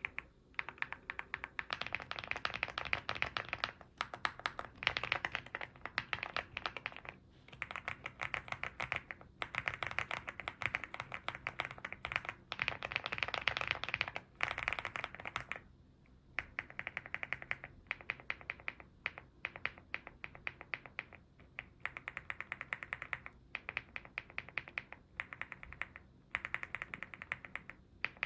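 Fast typing on an EPOMAKER GALAXY70 aluminium mechanical keyboard with HUANO Blossom Odyssey switches: runs of rapid keystroke clacks, broken by a few short pauses.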